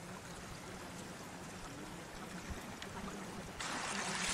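Steady wash of flowing water with a low steady hum beneath it, the water swelling louder about three and a half seconds in.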